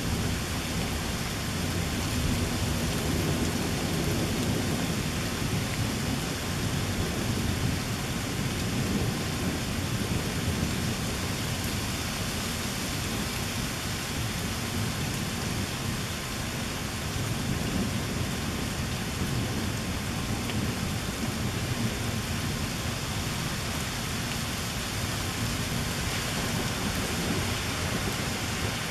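Steady rain falling on a garden, with a continuous low rumble of thunder underneath.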